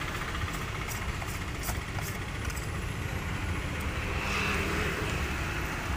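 Steady low rumble of a vehicle engine running in the background, with a few faint light ticks as a plastic oil-filter housing cap is unscrewed by hand.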